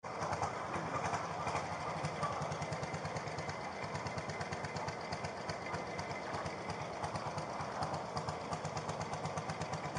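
An engine running steadily, with a rapid, even beat of firing pulses.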